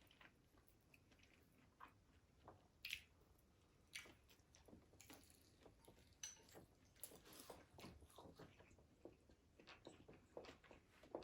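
Faint close-up chewing and biting: scattered wet mouth clicks and smacks of someone eating, a few louder ones about 3, 4 and 7 seconds in.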